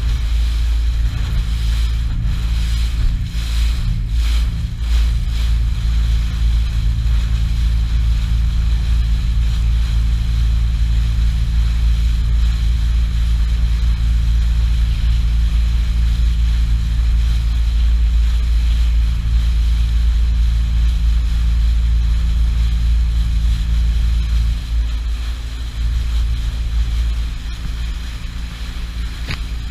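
RIB tender boat's motor running steadily under way, with water rushing past and wind buffeting the microphone. The motor eases off near the end.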